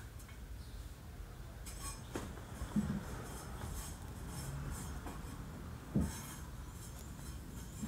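Quiet room tone with a few scattered light knocks and small clinks, the sharpest knock about six seconds in.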